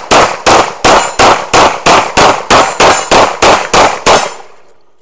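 Rapid string of semi-automatic pistol shots, about three a second, some thirteen in all, stopping a little after four seconds in as the last report dies away.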